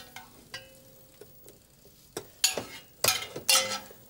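Hand-cranked Flotte Lotte food mill being turned, its metal blade scraping and squelching the sauce through the perforated sieve in short strokes. The strokes are few at first and come thicker from about two seconds in.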